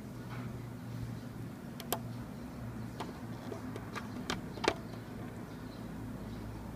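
Fingernails picking and peeling old rubber-dip coating off a plastic car emblem: a few small, sharp clicks spread out over a low, steady hum.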